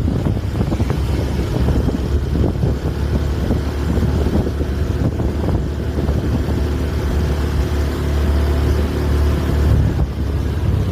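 Bus engine running with a deep, steady rumble and road noise; no horn melody is sounded.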